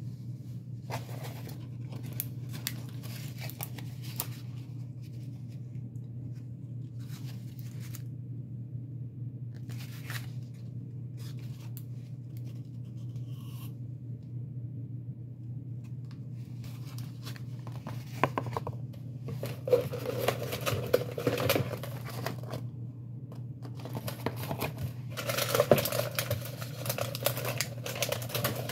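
Paper food wrappers and a cardboard sandwich box rustling, crinkling and tearing as they are opened and handled, in bursts that grow louder in the last third. A low steady hum runs underneath.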